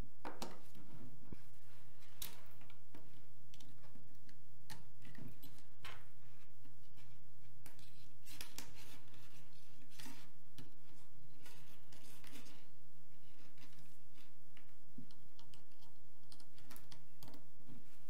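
Mechanical keyboard switches being pressed key after key in irregular clicks and clacks over a steady low hum: a freshly built split keyboard being tested.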